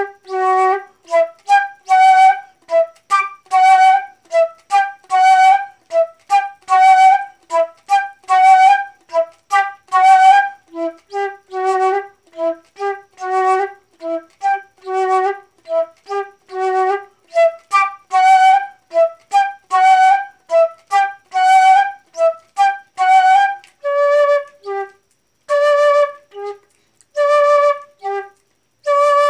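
Solo flute playing a slow, detached melody. Each note stands apart with short silences between, and the line leaps back and forth between a low and an octave-higher register. From about two-thirds of the way through, the notes move up to a higher pitch and come as longer, spaced-out tones.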